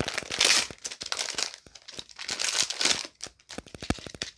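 A foil blind-bag packet torn open and crinkled by hand: a run of rustling crackles and small snaps, loudest about half a second in and again between two and three seconds in.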